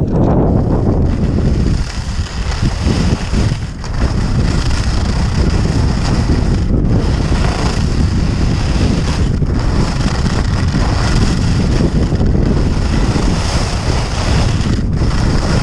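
Wind rushing over an action camera's microphone as a skier descends at speed, with a steady high hiss over a low rumble. It dips briefly twice in the first few seconds.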